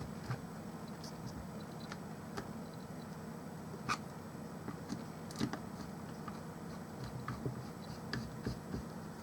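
Scattered light clicks and taps of a small screwdriver and hands on a mini Bluetooth speaker's plastic casing as its screws are driven back in, with a few more clicks together near the end over a steady low hum.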